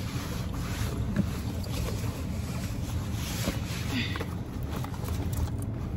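Clothing rustling and a body shifting on a car seat as someone pulls on pants, over a steady low rumble inside the car.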